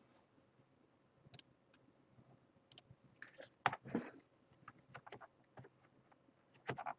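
Faint, scattered clicks and taps of a computer mouse and keyboard being handled, with louder clusters about four seconds in and again near the end.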